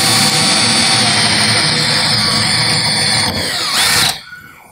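Stanley SBH201 18 V brushless cordless drill boring a 6 or 8 mm hole through steel, its motor and bit whining steadily. The pitch rises just before it stops about four seconds in, as the hole is finished without trouble.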